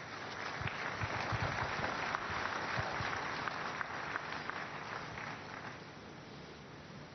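Congregation applauding: many hands clapping, swelling within the first second or so and dying away about six seconds in.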